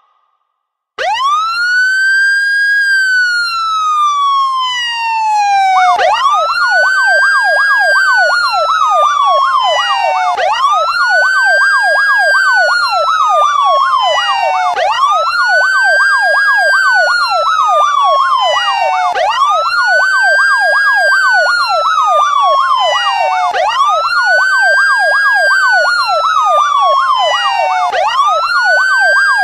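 Police siren starting about a second in with a slow wail that rises and falls about every four and a half seconds. From about six seconds in, a fast yelp runs over the wail.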